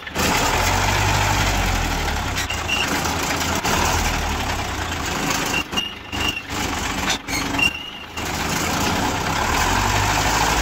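Truck engine of a homemade dual-tyred dump truck running steadily as the truck moves off slowly, with a few short high squeaks and a couple of brief dips in the engine sound.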